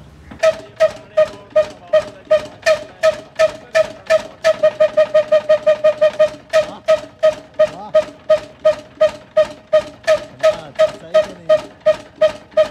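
Old 16 hp horizontal single-cylinder diesel engine with a large flywheel, hand-started, catching about half a second in. It then runs with a regular ringing exhaust pop about three times a second, which quickens to about five a second for a couple of seconds midway.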